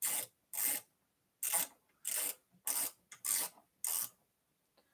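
A small hand ratchet wrench tightening the e-bike's handlebar stem bolts. The pawl gives a quick run of clicks on each back-swing, about eight strokes roughly half a second apart.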